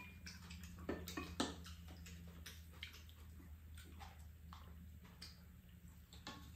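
Two people eating noodles: a run of soft clicks and smacks from chewing, with wooden spoons and chopsticks tapping bowls and a pan, two of the clicks louder about a second in. A faint, low, steady hum lies underneath.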